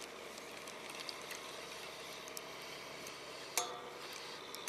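Faint scattered ticks from a spinning reel and rod being handled while a hooked fish is played, with one sharper click about three and a half seconds in, over a quiet steady background.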